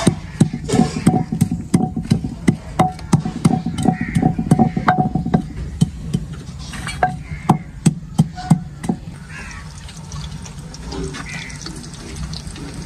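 Rapid knocking of a utensil on a metal cooking pot, about four strikes a second with a short metallic ring, thinning to a few scattered knocks after about five seconds and stopping near nine seconds.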